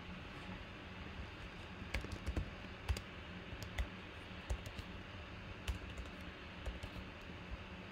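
Computer keyboard being typed on: a run of irregular, uneven keystrokes that starts about two seconds in, as a username is entered into a spreadsheet.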